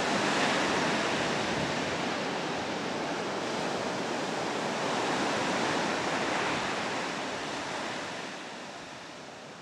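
Steady rush of sea surf, fading away over the last two seconds or so.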